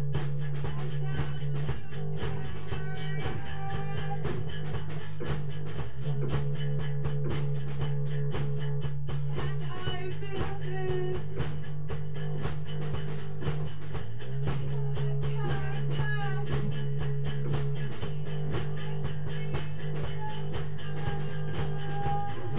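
Live jam music: a held low drone that shifts pitch about every four seconds, with sliding high notes over a steady rhythmic pulse.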